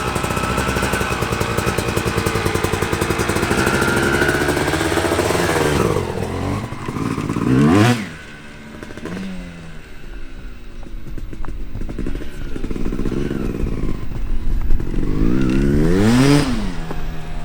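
2005 Yamaha YZ250 two-stroke dirt bike with an FMF pipe being ridden: the engine holds steady revs for about six seconds, climbs hard and drops off about eight seconds in, then rises and falls with the throttle, with another sharp climb near the end.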